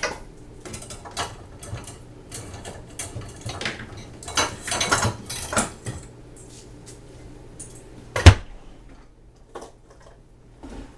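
Kitchen utensils and dishware being handled: a run of light clinks and knocks, then one sharp knock about eight seconds in and a few faint taps.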